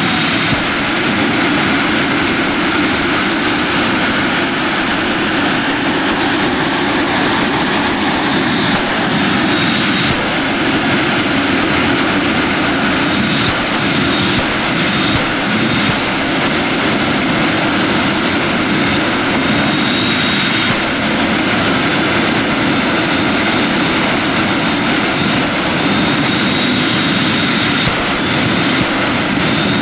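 Jet truck's jet engine running at full blast, a loud steady rush of noise with a thin high whine that comes and goes.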